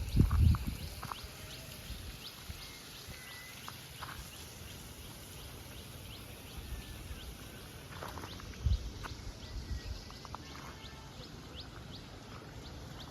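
Many short, high-pitched animal chirps, scattered throughout, over a steady outdoor hiss, with a few longer whistled notes. Low thumps come at the very start and again about nine seconds in.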